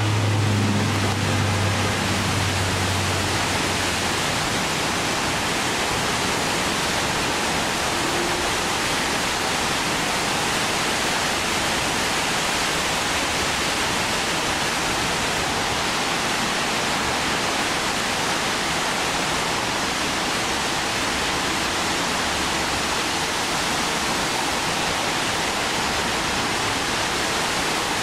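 Steady, even rushing noise of wind and rain, with a low hum fading out over the first few seconds.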